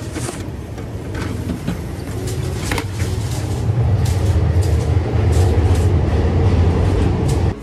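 Low rumble of a passing train that grows louder about halfway through and stops abruptly near the end, with scattered clicks and rustles from a vending machine's plastic dispenser flap and a cardboard sandwich box being handled.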